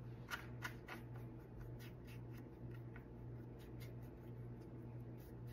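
Faint brush strokes working wood stain evenly over a wooden piece: a series of short strokes, over a steady low hum.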